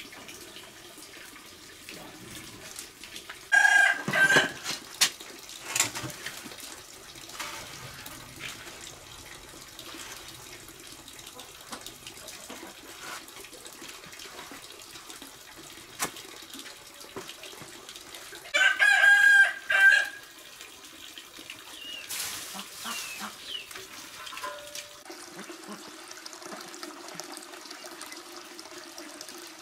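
A rooster crowing twice, about fifteen seconds apart, each crow a loud call of a second or so, over steady running water in the background.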